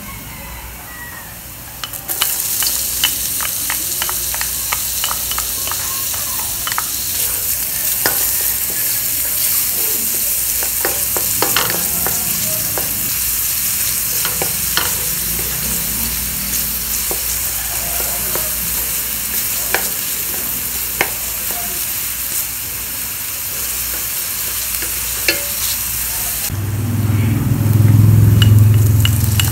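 Diced red onion hitting hot oil and garlic in a stainless steel pot, sizzling loudly from about two seconds in, then stirred with a wooden spatula whose scrapes and taps click against the pot. Near the end the sizzle drops and a low rumble takes over.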